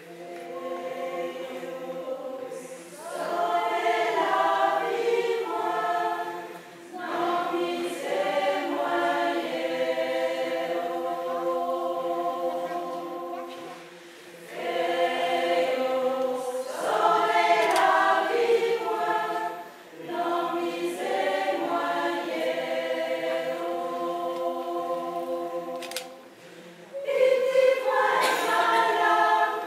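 Mixed choir of men and women singing held chords, in four phrases with short breaks between them. No accompaniment is heard.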